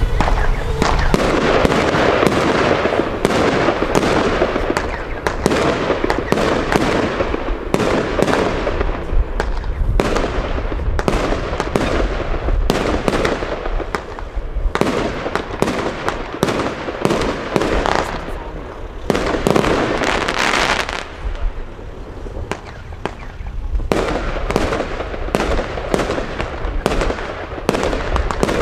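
Consumer firework batteries firing: a rapid string of launch thumps and bursting shots, several a second, with a short thinning about two-thirds through.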